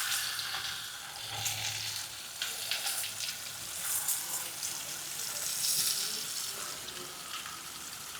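Spatchcocked chicken sizzling skin-down in hot ghee in cast iron pans, a steady hiss with frequent small crackles and pops as the skin sears and crisps.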